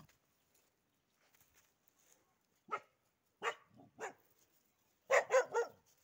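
Small young dog barking in short, separate barks: single barks a few seconds in, then a quick run of three near the end.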